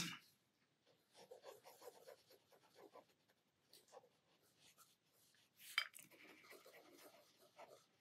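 Faint scratching of a black PITT fine-liner pen's tip on sketchbook paper in short, scattered strokes, with one slightly louder rustle about two-thirds of the way through.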